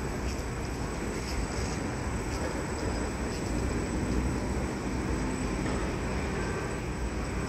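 Low-floor electric tram rolling slowly past on grassed track: a steady low rumble from wheels and running gear, with a faint hum partway through.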